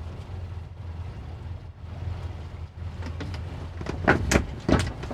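Boat engine running steadily with a low hum under wind and water noise. A few short, loud sharp sounds come about four seconds in.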